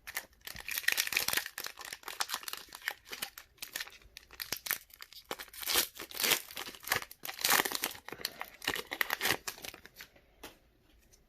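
Foil Pokémon booster pack wrapper crinkling and being torn open by hand, a dense irregular crackle that thins out near the end.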